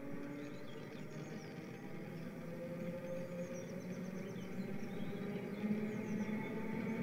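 N gauge model trains running: a steady hum whose pitch drifts slowly as the locomotives change speed, with faint bird chirping over it.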